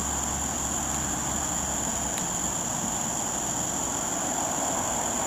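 Steady high-pitched drone of summer insects. A low rumble underneath stops about two seconds in.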